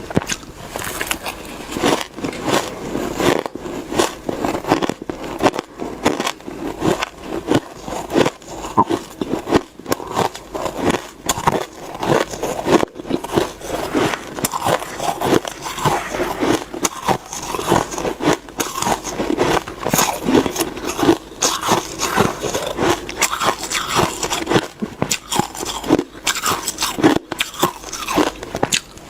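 Close-up crunching and chewing of frosty shaved ice, a continuous run of crunchy bites.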